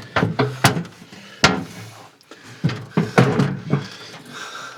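Clunks and knocks of a tractor's heavy sheet-metal hood being handled and set back into place, with a few separate sharp knocks, the loudest about one and a half seconds in.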